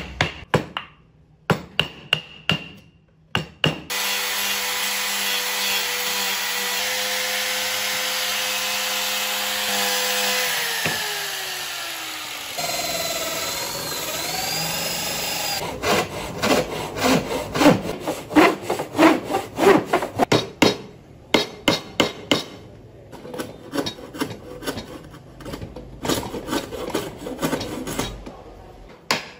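A few sharp knocks from chisel work on wood. Then an electric drill runs steadily for about ten seconds, its pitch sagging as the bit bores into the wood. It is followed by rapid back-and-forth strokes of a hand tool across wood, a few strokes a second.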